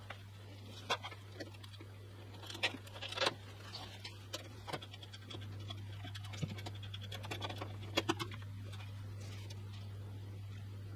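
Hands fitting a Corsair H150i PRO radiator into a metal PC case: scattered clicks, knocks and scraping of metal parts and small screws, with a quick run of fine ticks near the end. A steady low hum runs underneath.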